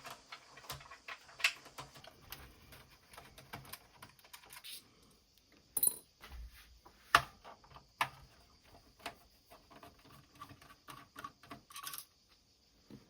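Screws being taken out of a Sharp MZ-711 computer's case: a run of small irregular clicks and ticks, with a few sharper knocks, the loudest about seven seconds in.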